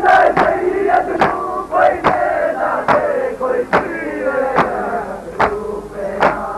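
A crowd of Muharram mourners beating their chests in unison (matam), one loud slap a little under every second, while many men's voices chant and shout over the beat.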